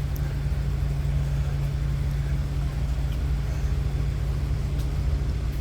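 Steady low engine drone, holding even throughout.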